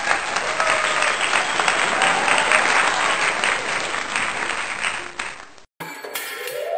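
A small group of men clapping and cheering, a dense crackle of claps that cuts off abruptly near the end. Music starts just after.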